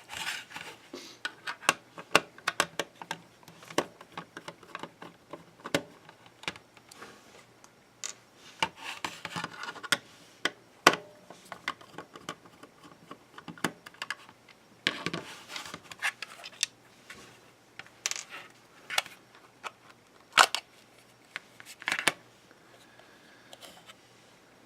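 Screws being taken out of the small plastic case of a 20 A solar charge controller and the case being handled, with irregular sharp clicks, taps and short scrapes. A few louder clicks come in the second half.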